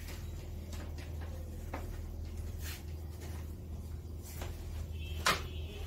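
Board eraser wiping a whiteboard in a few soft swishing strokes, with a sharper swish near the end, over a steady low hum.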